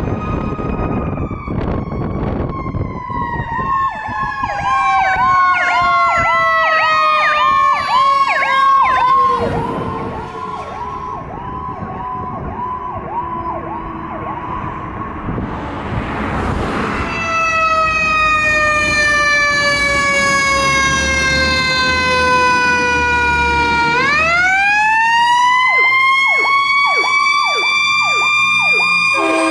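Fire trucks' Powercall electronic sirens sounding. A wail slowly falls in pitch while a fast yelp warbles over it. A brief loud blast of noise comes about halfway through. Near the end a wail rises sharply and breaks into a fast yelp, with diesel engine rumble underneath.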